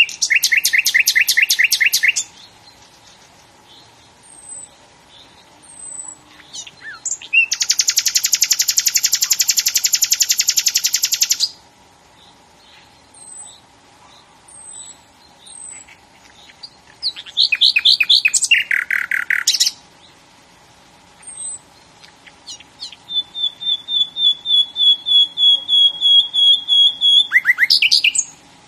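A songbird singing in four phrases of rapid trills, with short faint high notes in between.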